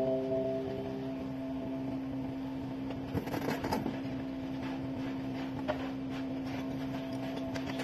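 Thin brick-look wall tile strips clattering against each other as a handful is picked up, about three seconds in, with a single click a couple of seconds later. A steady held tone of background music runs underneath.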